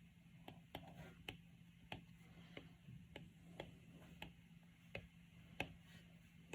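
Faint, sharp clicks at slightly uneven intervals, about one or two a second, over a low steady hum.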